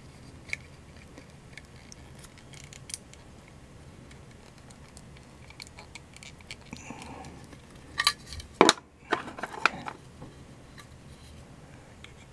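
Hard plastic figure parts clicking and scraping against each other as a figure's foot peg is worked into its plastic base, with a few sharper clicks about eight seconds in.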